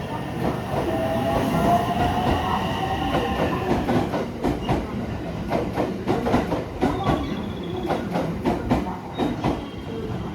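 A train moving at a station: a whine rising slowly in pitch over the first few seconds, then rapid, irregular clacking of wheels over rail joints and points.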